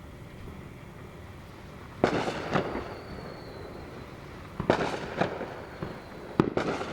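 Fireworks going off: a sharp bang about two seconds in, trailing into crackling, then further clusters of bangs and crackles in the middle and near the end.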